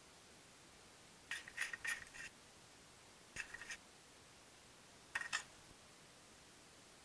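Small hard parts of a stereo microscope clicking and rattling against each other as they are handled and fitted, in three short bursts with a slight metallic ring. The first burst is the longest.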